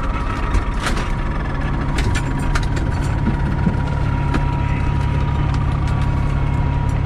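Diesel engine of a 2003 Pierce Dash fire truck running steadily, likely at idle, with scattered short clicks and rattles and a faint steady high whine.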